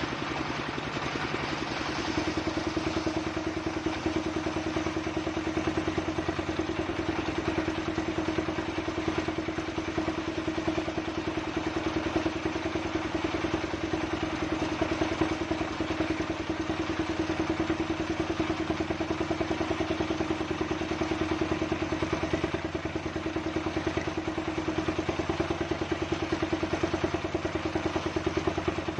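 Engine-driven table circular saw running steadily: a constant engine rattle under a steady hum, picking up slightly about two seconds in.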